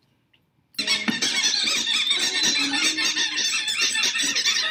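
Flock of cartoon birds squeaking and squawking over one another in a dense, bickering chatter of short high chirps, starting suddenly after a brief silence just under a second in.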